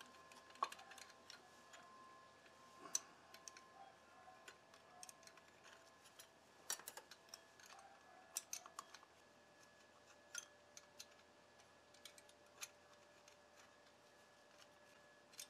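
Faint, scattered light clicks and taps of metal clutch plates knocking against each other and the basket as they are wiggled out of a Honda VTX1800 clutch by gloved hands.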